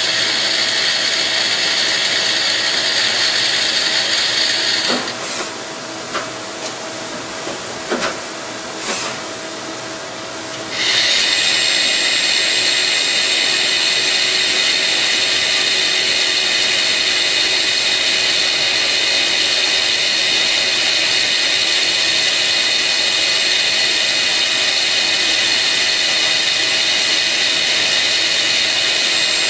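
Hardinge T42 CNC lathe running with a steady high-pitched whine. About five seconds in, the whine drops away for several seconds and a few clicks and knocks sound. The whine returns at full level about eleven seconds in.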